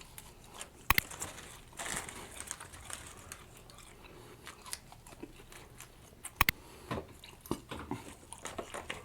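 Close-up chewing and biting of a chicken sandwich, with wet mouth sounds throughout. Two sharp clicks stand out, about a second in and again about six and a half seconds in.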